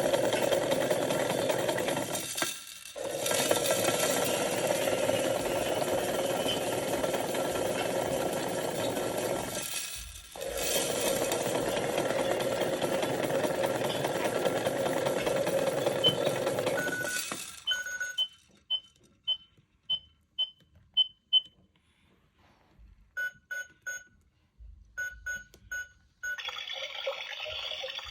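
Toy washing machine's small electric motor turning the drum with a steady hum, cutting out briefly twice. About seventeen seconds in the motor stops and the machine gives a run of short electronic beeps, about two a second, then a few lower beeps. Near the end a hiss of water trickling starts.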